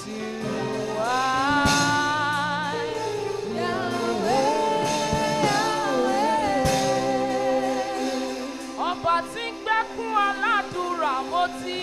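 A woman singing a gospel worship song into a microphone over sustained backing chords. She holds long notes with vibrato, then breaks into short, choppy phrases near the end.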